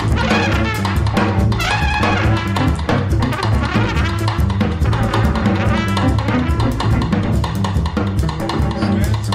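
Jazz recording of a trumpet playing over drum kit and bass, with frequent drum strikes under the horn line.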